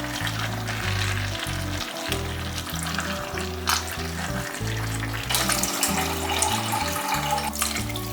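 Food sizzling as it fries in a pan, with scattered clicks from stirring, louder about halfway through. Background music plays underneath.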